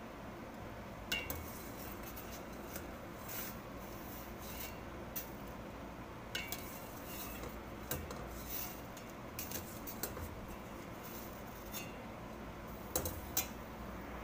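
Scattered light metallic clinks and taps of kitchenware, a few with a short ring, over a steady low hum.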